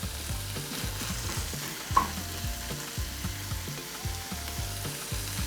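Vegetables sizzling in a hot frying pan while being stirred and tossed, with a utensil knocking and scraping against the pan, one knock sharper about two seconds in.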